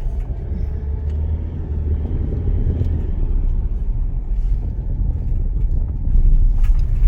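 Car driving along a road: a steady low engine and road rumble that swells slightly about six seconds in.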